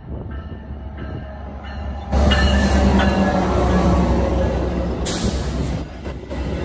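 Metra F59PHI diesel locomotive and its bilevel passenger cars passing close by. The locomotive's engine rumble jumps louder about two seconds in as it goes past, then the cars roll by with a brief hiss about five seconds in.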